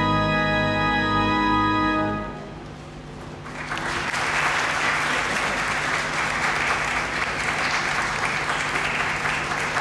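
Pipe organ holding a full final chord, released about two seconds in and fading away in the church's reverberation, then the audience breaking into steady applause.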